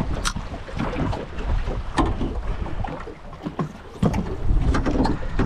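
Wind buffeting the microphone in an open aluminium fishing boat, with a few sharp clicks and knocks from rods and reel being handled against the hull.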